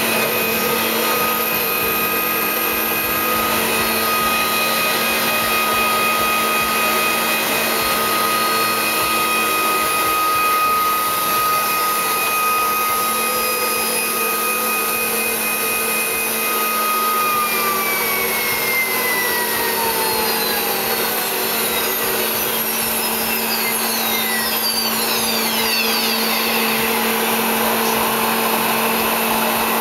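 Voumard Type 203 internal grinder running, its high-frequency grinding spindle giving a steady high-pitched whine over a steady lower machine hum. About halfway through, the whine falls smoothly in pitch as the spindle slows down.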